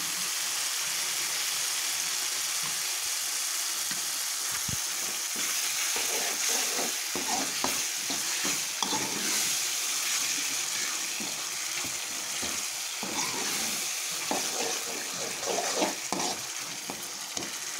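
A wet spice masala sizzling and bubbling in a pan, with a steel spoon stirring it and now and then scraping against the pan.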